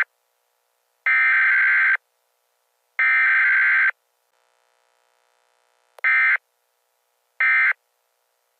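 Emergency Alert System SAME digital header: harsh, buzzy bursts of rapidly switching high tones, each about a second long with a second's gap, ending the three-times-sent header. After a short pause come shorter bursts of about a third of a second each, the end-of-message code.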